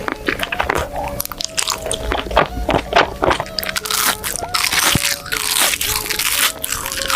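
Mukbang-style eating sounds: crisp crunching bites and chewing, densest about four seconds in, over background music.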